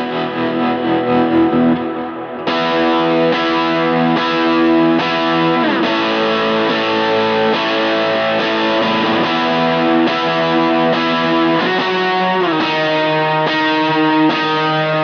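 Electric guitar on its Lambertones Grinder bridge pickup, played through a pedalboard of effects, ringing out sustained chords and melody. It gets louder and brighter about two and a half seconds in, and a few notes slide in pitch around the middle and near the end.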